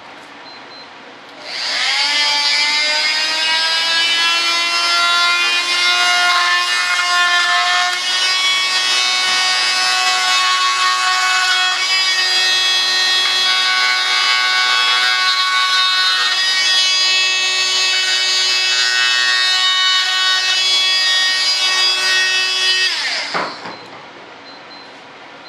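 Handheld high-speed rotary cutting tool spinning up about a second and a half in and running with a steady high whine while it cuts a panel, its pitch wavering slightly under load. It winds down near the end.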